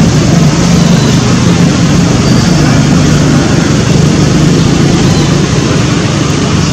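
Steady loud background rumble with a low hum and a hiss over it, unchanging throughout.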